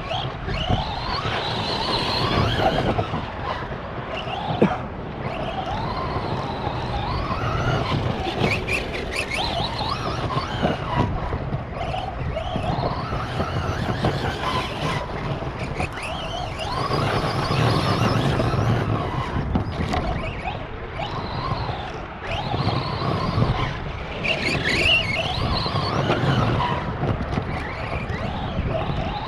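Arrma Big Rock RC monster truck driving hard laps: its electric motor and drivetrain whine, rising and falling with the throttle, over tyre noise and occasional knocks from bumps and landings.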